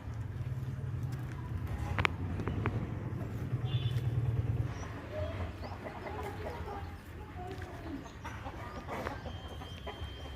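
Chickens clucking with short scattered calls, over a low steady rumble that stops about halfway through, with a sharp click near the start.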